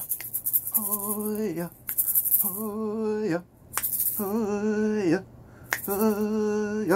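A man's voice chanting a series of long held notes, five in all, each just under a second with a slight waver and a drop in pitch at its end, separated by short gaps filled with a breathy hiss.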